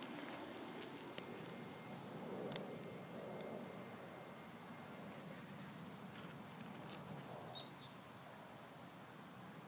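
Faint outdoor ambience with short, high chirps recurring every second or so, and a few light clicks in the first few seconds, the sharpest about two and a half seconds in.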